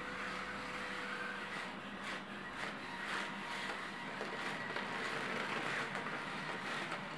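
The small electric drive motors of a scale-model mountain wheelchair prototype run with a steady whine as it drives across carpet and climbs over a crumpled cloth.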